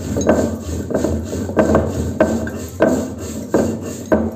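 Stone roller worked back and forth over a grooved stone grinding slab (pata), grinding roasted masala into paste: a rhythmic rasping rub, about three strokes every two seconds.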